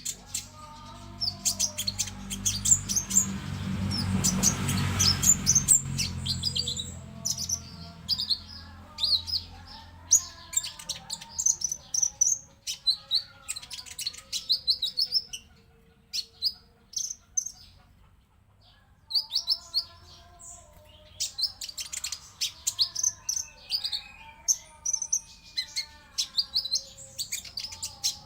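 Konin songbird song: rapid runs of sharp, high chirps and trills over lower warbling phrases, with a brief lull in the middle. This is a training ('pancingan') recording meant to lure caged konin into full song.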